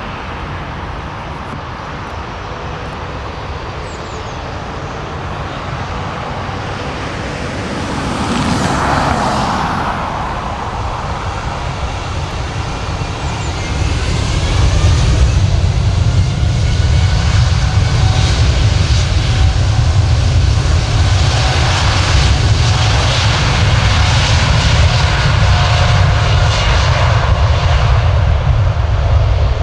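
Boeing 787-9 jetliner's Rolls-Royce Trent 1000 turbofans running as it taxis onto the runway: a steady jet whine that swells briefly about nine seconds in, then jet engine noise grows into a louder, deep rumble from about halfway.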